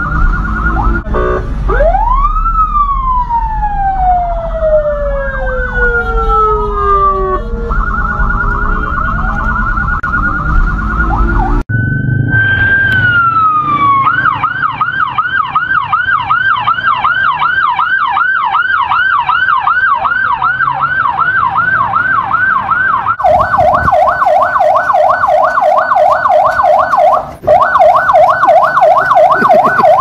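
Pakistani police car sirens in several joined recordings. First comes a fast warble, then a siren that rises and winds slowly down, with a low rumble underneath. Next is a yelp sweeping about three times a second, and from about two-thirds of the way in a rapid switching between two pitches.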